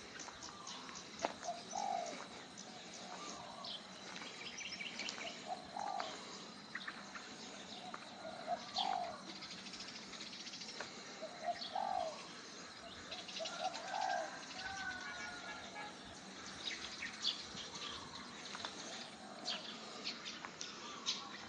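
Birds calling: short low cooing calls about every two to three seconds over many quick high chirps and ticks, with a steady high-pitched tone underneath.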